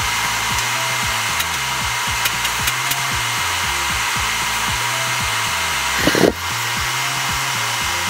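Car air-conditioning service machine running with a steady rushing hiss while new compressor oil is drawn into the system, the hiss dipping slightly about six seconds in. Background music with a stepping bass line plays underneath.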